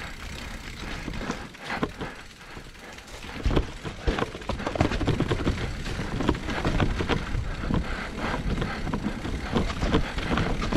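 Electric mountain bike riding a dirt singletrack: tyres rolling over dirt, leaves and roots with rattles and knocks from the bike over bumps, louder and busier from about three and a half seconds in.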